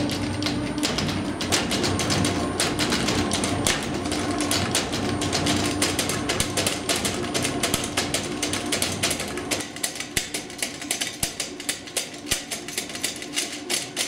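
Bicycle drum test rig running with a steady hum and rapid, repeated clattering knocks as the front wheel rolls on the drum. The front wheel is held only by its tightened adjustment nut, with the quick-release lever not properly engaged, so the hub is working loose. About two-thirds of the way through, the low hum falls away and the knocks become sparser and stand out more distinctly.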